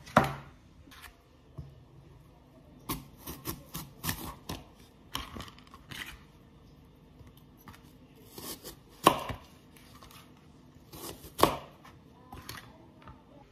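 Kitchen knife chopping an apple into small pieces on a cutting board: irregular sharp knocks of the blade through the fruit onto the board, some in quick clusters, with the loudest near the start and at about nine and eleven and a half seconds in.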